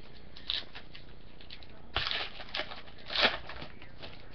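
Foil card-pack wrappers and trading cards being handled, rustling and crinkling in short bursts: a light one about half a second in, then louder ones at about two and about three seconds.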